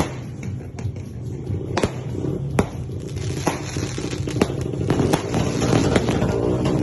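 Consumer fireworks cake (Dragon Fireworks Viking Warrior, 16 shots) firing: sharp reports about a second apart, each followed by crackling, over a steady low drone.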